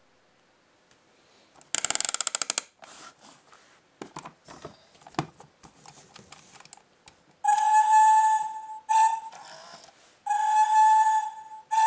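Electronic sound effects from a battery-powered Thomas & Friends toy engine: a quick burst of rapid chuffing, then scattered plastic clicks, then a steam-whistle toot played twice, each a long steady note followed by a short one.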